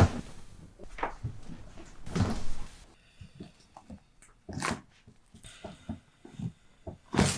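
Chiropractic back adjustments: about five separate sharp pops and thumps, one to three seconds apart. The loudest come at the very start and near the end.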